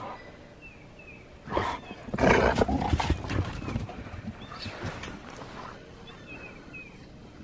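Dog play-growling: a short rough growl about one and a half seconds in, then a longer run of growls over the next second, fading to quieter sounds after.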